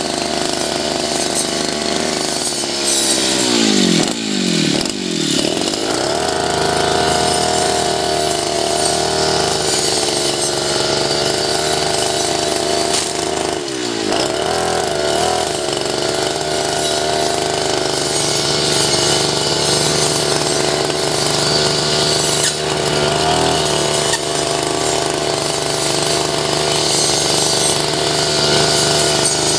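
Two-stroke backpack brush cutter with a round metal blade, its engine running at high revs while cutting weeds. The revs drop and climb back twice, about four seconds in and again around fourteen seconds, as the throttle is eased off and opened again.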